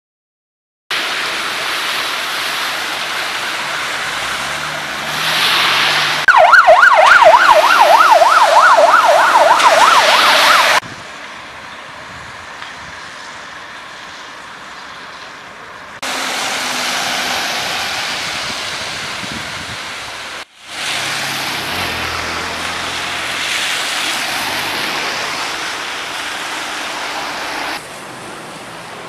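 Emergency vehicle siren in a fast up-and-down yelp, about three sweeps a second, loud for about four seconds starting some six seconds in. Around it are stretches of steady street noise from passing traffic, each changing abruptly from one to the next.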